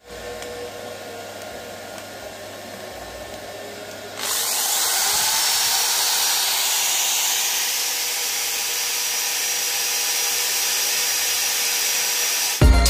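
DCA Z1J-FF02-13 500 W electric impact drill running with no load on a power station's pure sine wave inverter. It runs quieter at first, then speeds up and gets much louder about four seconds in and holds steady. Music starts at the very end.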